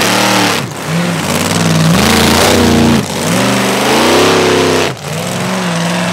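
Mega mud truck's engine revving hard in repeated surges, its pitch climbing and falling, with the throttle chopped sharply three times between surges.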